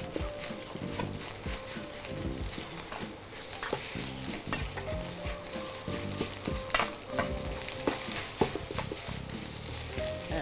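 Fried rice with egg sizzling in a stainless steel wok while a metal spatula scrapes and clinks against the pan in an irregular run of strokes, stirring and tossing.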